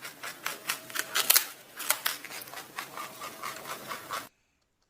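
Rabbit chewing: quick, irregular crisp crunching clicks, several a second, that stop suddenly near the end.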